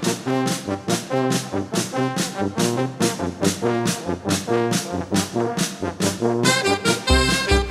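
Brass band music, with trumpets and trombones playing a fast, bouncy tune to a steady beat of about three to four pulses a second. A heavy bass beat comes in near the end.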